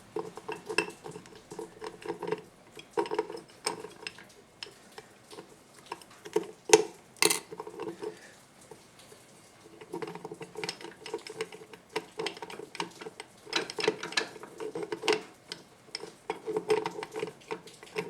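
Steel transmission parts clinking and rattling against each other as the front planetary gear set of a 4L60E automatic transmission is worked onto its splines. Many light clinks, with one sharper metallic clank about seven seconds in and a short pause about eight seconds in.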